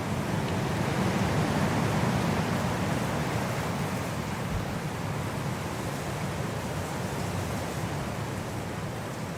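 Steady rushing wind, a broad even noise weighted toward the low end, gusting up slightly about a second in and easing off toward the end.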